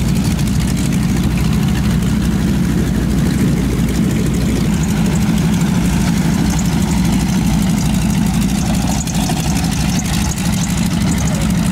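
North American SNJ (Navy T-6 Texan) trainers' Pratt & Whitney R-1340 nine-cylinder radial engines idling as the planes taxi past, a steady low rumble.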